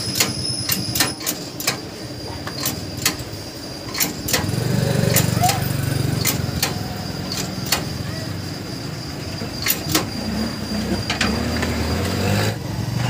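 Isuzu Crosswind gear shift lever being worked back and forth by hand, clicking sharply several times a second, then less often. A low motor drone starts about four seconds in.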